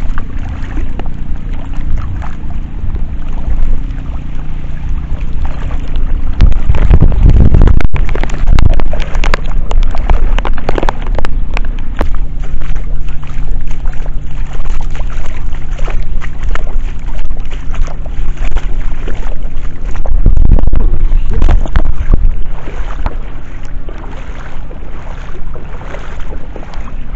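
Heavy storm rain with wind buffeting the microphone, over a steady low hum; the wind gusts loudly twice, for a few seconds each.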